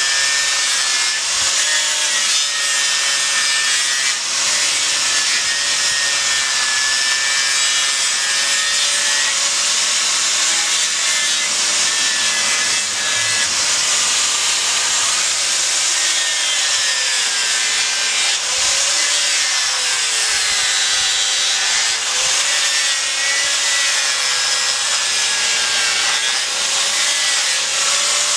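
Electric angle grinder with an abrasive disc running continuously against a block of monkeypod wood, shaping a tiki carving. Its motor whine wavers, sagging and recovering in pitch as the disc bites into the wood.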